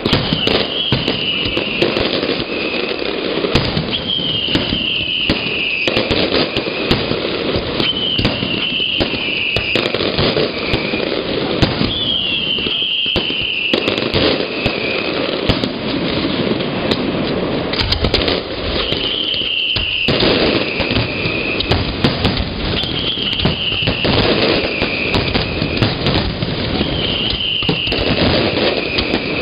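Fireworks going off continuously in a dense run of crackles and bangs. A high, slightly falling whistle, about two seconds long, comes back roughly every four seconds over the crackling.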